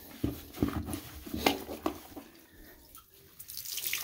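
Wet sponge squelching and splashing as it soaks up the water left in a toilet bowl, in several short strokes. Near the end water starts running and splattering as the sponge is wrung out into a sink.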